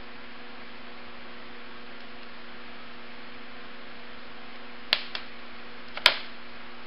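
Steady electrical mains hum, with sharp metal clicks of a pick and pliers working a small circlip off the neutral indicator on an engine case: two quick clicks about five seconds in and a louder one about a second later.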